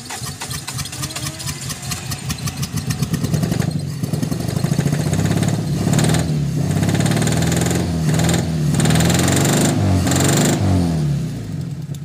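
Carburetted Toyota 4A-F four-cylinder engine being cranked by the starter during a compression test on cylinder number 4, which builds to about 150 psi, a good reading. It turns over with fast regular pulses, then after a few seconds catches and runs louder and unevenly, its pitch rising and falling, before easing off near the end.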